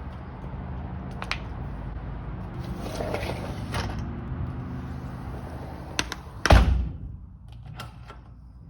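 Household handling noises: a few sharp clicks and knocks over a low steady hum, with one loud heavy thud about six and a half seconds in.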